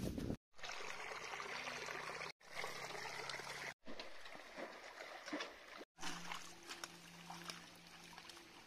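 Shallow water trickling and splashing in a muddy paddy-field ditch as water is scooped out by hand with a container, the traditional way of draining a ditch to catch fish. The sound cuts out abruptly for a moment four times.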